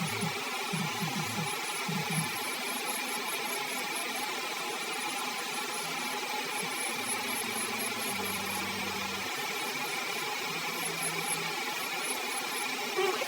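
Electric nail drill (e-file) running steadily with a carbide bit, grinding gel polish off toenails.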